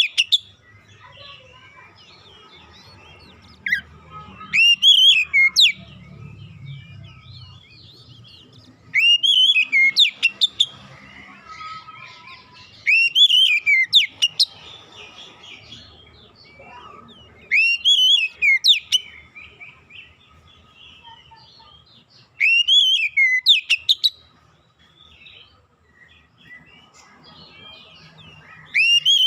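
Oriental magpie-robin (kacer) song: loud, clear whistled phrases of swooping notes, each about a second and a half long, repeated roughly every four and a half seconds, with faint softer chirps in between.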